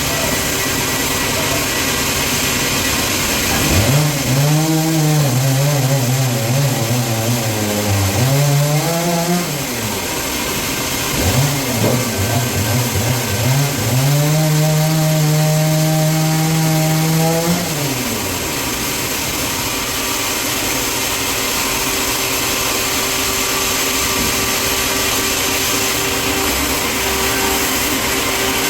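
Steady sawmill machinery noise, with an engine revving up and running under load twice: from about four to ten seconds in, and again from about eleven to eighteen seconds, each time dropping back to a lower hum.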